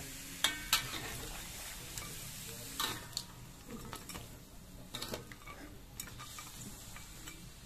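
Metal spatula stirring food in a wok, with irregular sharp clinks and scrapes of metal on metal over a faint frying sizzle.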